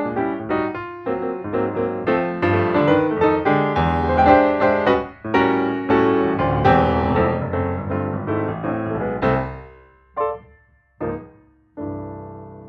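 Piano music: a busy run of notes that thins out near the end into a few separate chords, the last one left ringing and fading.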